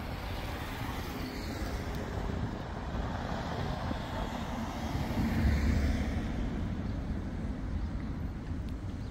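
Street traffic noise with a steady rumble. A vehicle passes close about five to six seconds in, making the sound swell and then fade.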